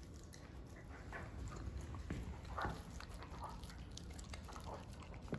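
Dutch Shepherd and Belgian Malinois dogs eating raw ground meat off a plate: faint, irregular wet chewing and licking sounds.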